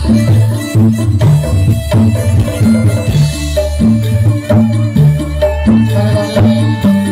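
Jaranan music, the East Javanese gamelan accompaniment for the horse trance dance, played loud through the troupe's sound system. It runs in a steady rhythm of drum strokes over a repeating low melodic figure.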